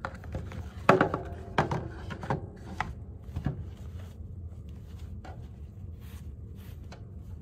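Unboxing handling noise: a cloth drawstring dust bag and its cardboard box being lifted and moved about, with a few sharp knocks and taps in the first few seconds, the loudest about a second in, then soft fabric rustling.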